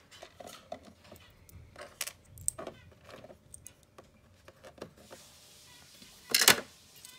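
Small plastic toy pieces clicking and tapping as they are set down and moved about on a plastic dollhouse, with one louder clatter a little after six seconds in.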